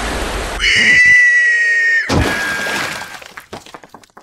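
Cartoon sound effects: a rushing crash, then a high shriek held for about a second and a half, falling slightly in pitch. It is cut off by a crash of a wall breaking, which fades into small clicks of falling rubble.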